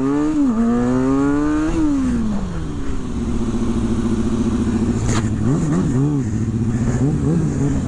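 Sport motorcycle engine heard from onboard while riding: the revs climb for about two seconds as the bike accelerates, drop as the throttle closes, then hold steady with several short rises and falls in revs near the end.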